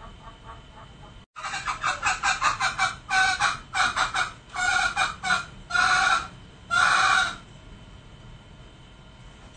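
Male green junglefowl calling. From about a second in comes a quick run of short clucking notes, then spaced groups of notes that lengthen into two longer notes and stop about two seconds before the end.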